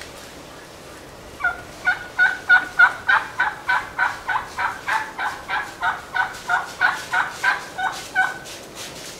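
Wild turkey yelping: a long, even run of short two-note calls, about three a second, beginning about a second and a half in and stopping near the end.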